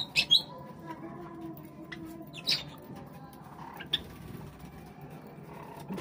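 Java sparrows giving short, sharp chirps while feeding: two loud ones right at the start, another about two and a half seconds in and a fainter one near four seconds.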